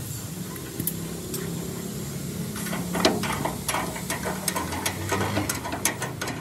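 Steady mechanical hum, joined about two and a half seconds in by a run of sharp metallic clicks and clinks of tool work, the loudest about three seconds in.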